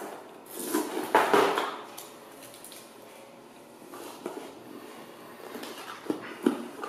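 Objects being handled: a rustling scrape about a second in, then a few light knocks and clatters.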